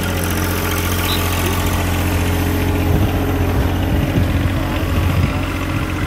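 A steady low hum from an idling engine, with some uneven low rumbling about halfway through.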